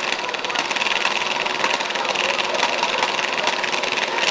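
Demolition derby car engines running steadily, a rough, rapid rattle.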